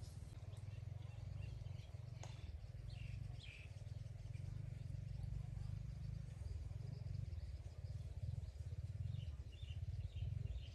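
Outdoor pond ambience: a steady low rumble, with faint bird chirps about three seconds in and again near the end, and a single light tap about two seconds in.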